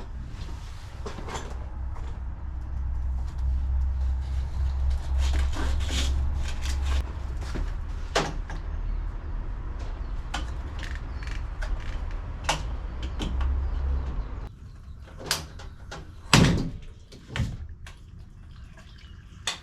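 Scattered knocks and clatters of objects being handled, over a low rumble that stops about 14 seconds in; the loudest knock comes near the end.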